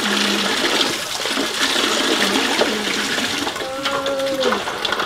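Water pouring steadily from a PVC pipe spigot and splashing as hands wash something under the stream. A faint held tone sounds near the end.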